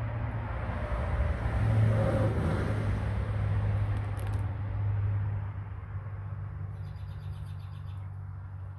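A motor vehicle's engine running: a steady low hum that swells over the first few seconds, then fades.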